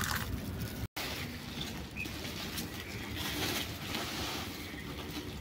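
Woven plastic sack rustling and crinkling as it is pulled and handled, with dry broken tamarind shells shifting and crackling on it.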